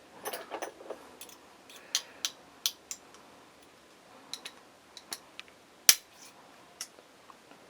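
Small steel tools clicking and tapping against the trigger bar and spring inside a Walther P88 Compact pistol frame, in scattered sharp clicks with one louder click about six seconds in.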